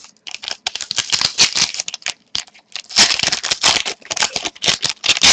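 Foil wrapper of a 2010-11 Panini Zenith hockey card pack crinkling in the hands as a pack is taken off the stack and opened: a quick run of crackles, sparse at first and much denser about three seconds in.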